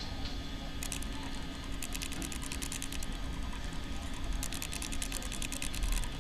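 Runs of rapid light clicking, three bursts of quick ticks, over a steady low hum.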